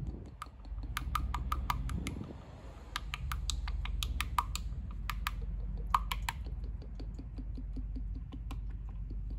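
Motor oil glugging out of a plastic quart bottle into a funnel: bursts of quick clicky pops as air gulps back into the bottle, thinning out after about six seconds, over a steady low hum.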